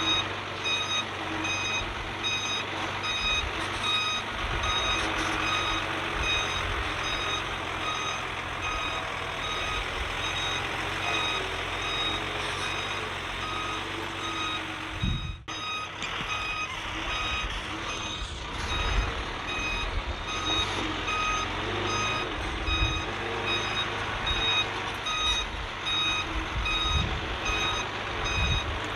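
Backup alarm on heavy earthmoving equipment beeping steadily and evenly over the low rumble of a diesel engine running, with a brief break about halfway through.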